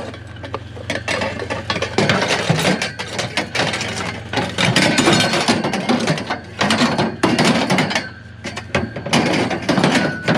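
Metal frame tubing clanking and rattling as the pieces are piled into a pickup truck bed, a dense run of metallic knocks.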